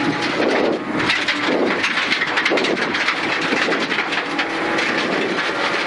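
Suzuki Ignis Sport rally car at speed on a gravel stage, heard inside the cabin: the 1.5-litre engine running under load over steady road noise from the gravel.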